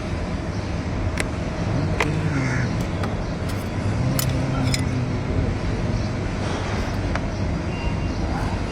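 Steady low rumble of a running vehicle engine, with a few sharp metallic clicks scattered through it.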